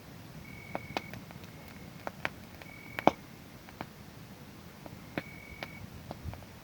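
Wood fire crackling with scattered sharp pops, the loudest about three seconds in, while a cricket chirps in short, steady, high-pitched trills every second or two.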